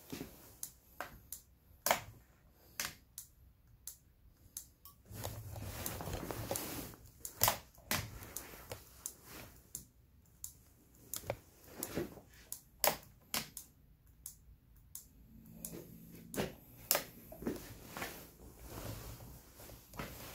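Irregular sharp clicks and light knocks of hands working on scooter wiring and plastic handlebar parts.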